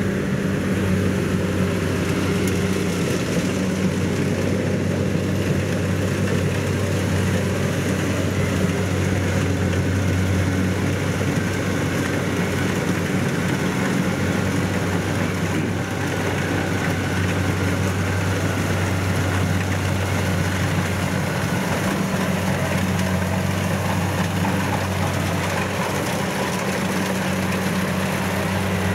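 Kubota DC70 rice combine harvester's diesel engine running at a steady speed while the machine cuts rice, a constant low hum with no change in pitch.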